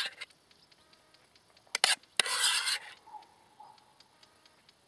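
A few short scrapes and clicks of a utensil against cookware while food is served onto a plate: two sharp clicks just before two seconds in, then a half-second scrape.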